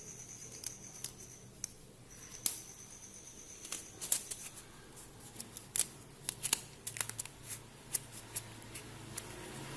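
Irregular small clicks, taps and crinkling, typical of small objects or plastic being handled. A faint steady high whine runs under the opening few seconds and breaks off briefly about two seconds in.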